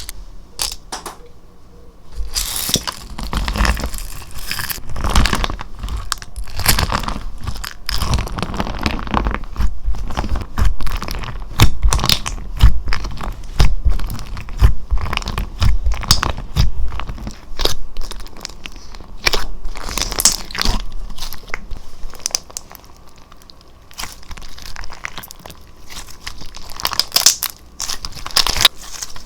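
Slime being squeezed and worked by hand: a dense run of crackling, popping clicks, loudest through the middle and easing off for a few seconds about two-thirds of the way in.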